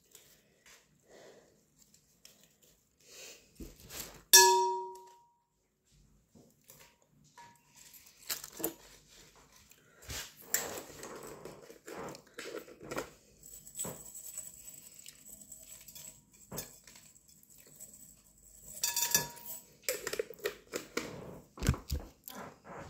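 Kitchen dishes and utensils being handled and knocked together, with a loud ringing clang about four seconds in and another, weaker ringing clang later on.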